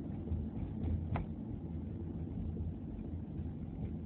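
Steady low background rumble between stretches of talk, with one brief click about a second in.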